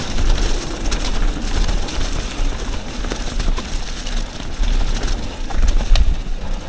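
Yeti SB 150 mountain bike ridden along a trail: wind rumbling on the microphone over tyre noise, with scattered sharp rattles and clicks from the bike.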